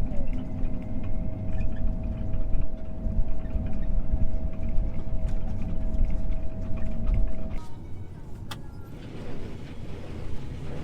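John Deere T670i combine harvester running as it is driven, heard from inside the cab: a heavy low engine rumble with a steady whine above it. About three-quarters of the way through the sound drops abruptly to a quieter rumble, and a single sharp click follows.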